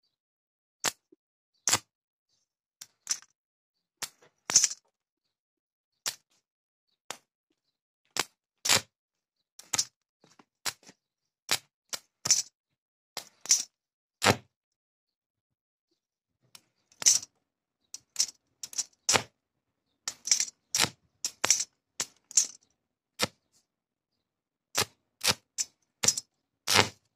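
Electric arc from a homemade salt-water welding machine, its rod striking an iron strip: sharp crackling snaps as the arc catches and breaks, coming in irregular clusters with pauses of a second or two.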